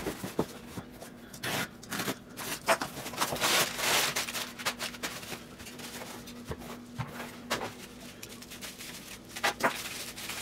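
Cardboard shipping box and bubble-wrapped packages being handled: irregular rustling, crinkling and light knocks as the box is opened and the wrapped bullion is lifted out, busiest about four seconds in.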